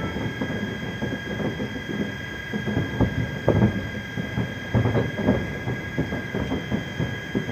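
Distant fireworks going off in a dense, irregular barrage of booms and crackles, several bangs a second.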